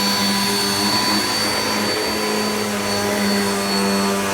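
Hoover Nano Cyclonic UH20020 upright vacuum cleaner running loud and steady: a motor hum with a thin high whine on top.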